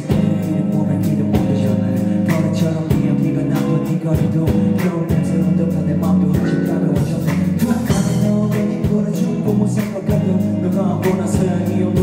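A rock band playing live and loud: a steady drum beat with electric bass and guitars.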